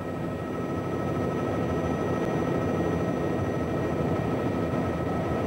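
Cabin noise of a Bell JetRanger helicopter in flight: a steady rumble from the rotor and engine, with a thin, high, steady turbine whine above it. It swells a little over the first two seconds, then holds.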